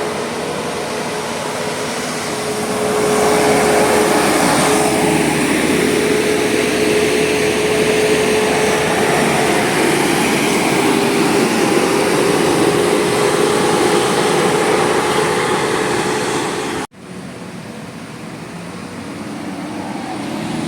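Road traffic dominated by a large vehicle's engine running, a steady noise with a constant whine that swells a couple of seconds in. An abrupt cut near the end leaves quieter traffic noise.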